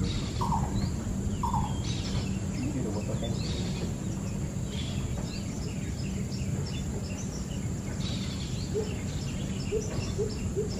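Lesser coucal calling: near the end a quick series of low, evenly repeated hooting notes, the 'whoop whoop whoop' of the species. Two short falling higher notes come about a second apart near the start, and small birds chirp throughout.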